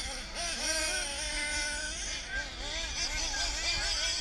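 Radio-controlled off-road race cars running on a dirt track, their motors whining and rising and falling in pitch as they accelerate and back off.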